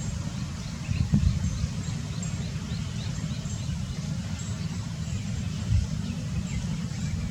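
Low rumble of wind on the microphone, with a faint bird calling over it: a quick run of short falling chirps, a few a second, in the first half.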